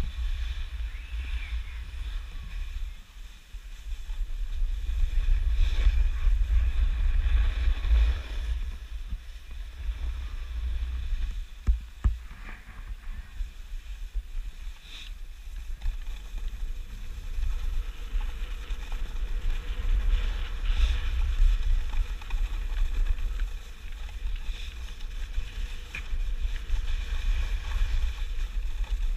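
Wind buffeting a helmet-mounted GoPro's microphone while a snowboard slides down a groomed slope, its edges scraping and hissing on the snow in swells as it turns. There is a single sharp knock about twelve seconds in.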